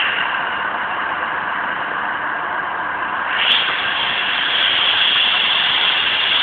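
Steady hiss of steam escaping from GS&WR 0-6-0 steam locomotive No. 186 as it lets off steam at rest, growing a little stronger about halfway through.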